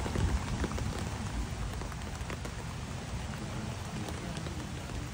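Light rain pattering, with scattered sharp drop ticks, over a low rumble that eases after the first second.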